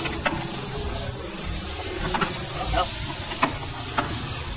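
Scattered light clicks and taps of hand tools and plastic tailgate trim being worked loose, over a steady hiss.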